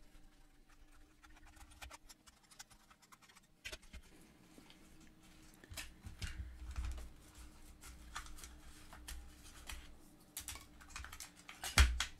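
Hands working a screwdriver on a transistor radio's chassis and handling its metal front panel: scattered small clicks, taps and scrapes, with one louder knock near the end.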